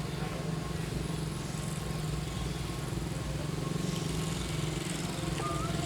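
A small engine running steadily at low revs, an even low hum. A few faint high chirps come in near the end.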